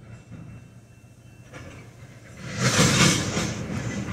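Freight tank cars rolling slowly on the rails: a low rumble, then a loud clatter of wheels and metal about two and a half seconds in that lasts about a second, followed by a few sharp clicks.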